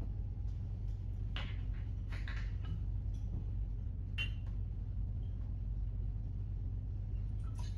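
Glass bottles and a jigger being handled at a bar counter: a handful of short, light glass clinks, one about a second in, a little cluster around two seconds, one around four seconds and one near the end. Under them runs a steady low hum.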